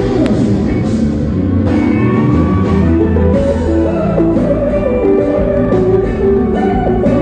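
Live kompa band music: an electric guitar melody over bass guitar and drums.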